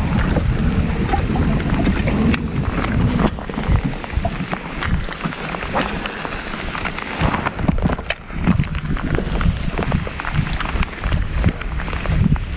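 Steady rain falling on the lake and the kayak, with scattered sharp ticks of single drops and wind rumbling on the microphone.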